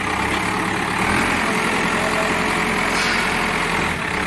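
Cat 424B backhoe loader's diesel engine running steadily.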